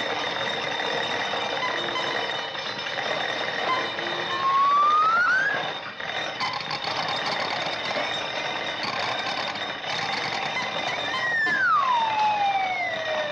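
Early sound-film soundtrack with steady hiss and a high hum, over which whistle-like sound effects glide in pitch: a short rising one about four seconds in, and a long falling one from about eleven seconds in.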